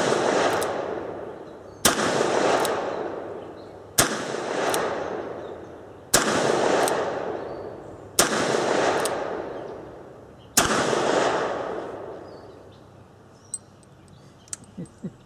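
Ruger Blackhawk .357 Magnum single-action revolver firing six .38 Special rounds, one about every two seconds, each shot trailing off in a long echo. A few light clicks near the end as the revolver is handled.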